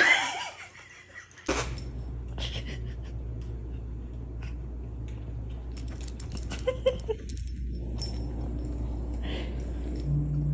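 Dog's collar tags jingling, with small scattered clicks, over a steady low hum. A sudden loud sound comes right at the start.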